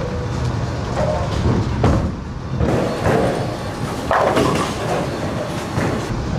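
Bowling ball rolling down a wooden lane with a steady low rumble, then striking the pins with a clatter about three to four seconds in.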